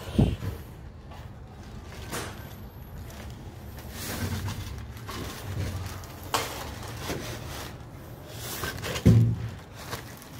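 A few dull thumps and knocks over a low rumble: a sharp one right at the start, another about six seconds in, and a heavy one near the end.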